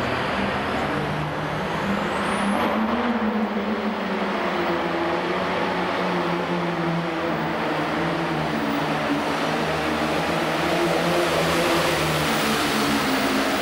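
Super Farm pulling tractor's turbocharged diesel engine running hard under full load as it pulls the sled. A high whistle rises in pitch about two seconds in.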